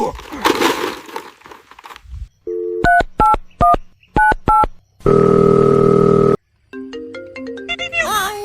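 Electronic beeps and tones: a crackling noise fades out, then a string of short two-tone beeps like phone dialing, a steady buzzing tone lasting about a second and a half, and a falling run of stepped beeps near the end.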